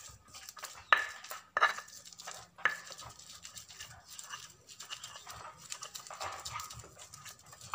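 A bare hand kneading and rubbing a soft paste of mashed chicken sausage against a round chopping board, in repeated soft squishing, scraping strokes. There are a few sharp taps in the first three seconds.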